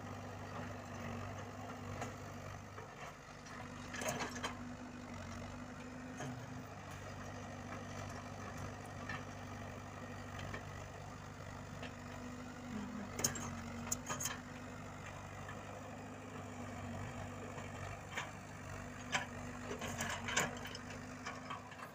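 Komatsu PC78UU mini excavator's diesel engine running steadily. A few sharp metallic knocks and clanks from the working machine come about 4, 13–14 and 19–20 seconds in.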